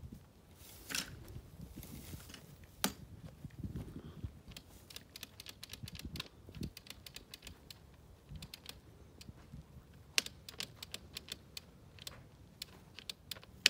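Scattered light clicks and rustles from handling the corded electric tiller at its handle grip, with no motor running; the tiller has stopped working. The clicks come thicker near the end.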